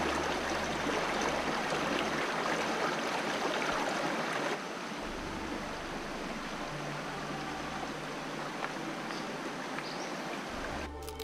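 Shallow creek rushing over rocks, loud and close. About four and a half seconds in it drops to a quieter, steady flow.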